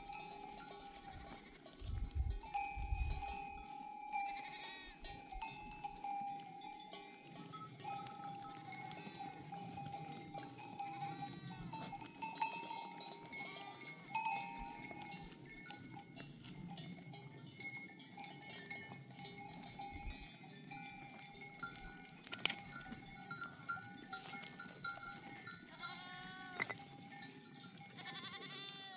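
Bells on a flock of sheep clinking and ringing steadily as the animals move, with sheep bleating now and then.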